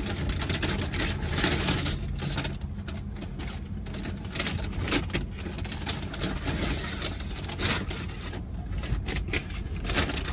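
Brown paper takeout bag rustling and crinkling in irregular bursts as food is pulled out of it, over a steady low rumble.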